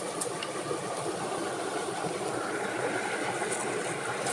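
Steady rushing background noise, with two faint clicks near the start.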